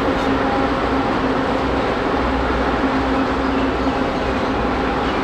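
Steady hum and low rumble of a train standing at a station platform, with a constant hiss of background noise.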